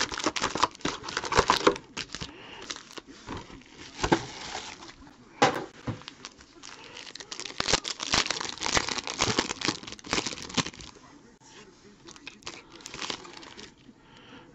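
Trading card pack being torn open: the wrapper crinkling and tearing with sharp crackles, thinning out near the end as the cards come out.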